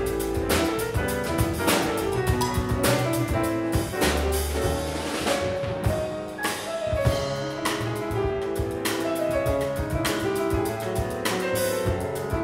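Jazz piano trio playing live: acoustic piano, plucked double bass and drum kit with frequent cymbal strikes.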